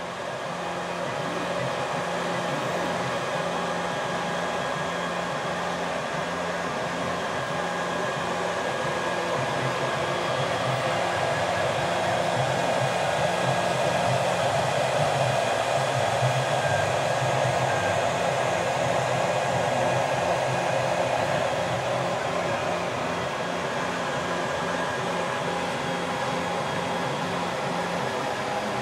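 Homemade mini 3D printer running a print: a steady whir of its cooling fans under the shifting whine and buzz of the stepper motors as the print head and bed move.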